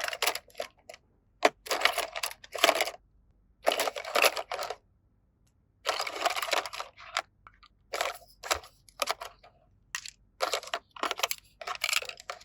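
Plastic toy pieces and packaging being handled: a string of short rustling, scraping bursts with a few sharp clicks between them, separated by brief pauses.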